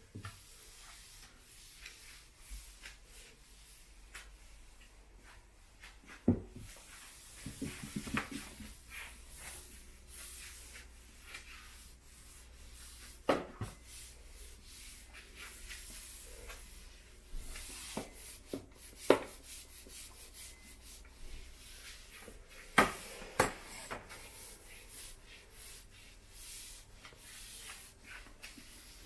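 Quickle Wiper floor mop's dry sheet rubbing and scraping across the floor in short strokes, with several sharp knocks and taps scattered through.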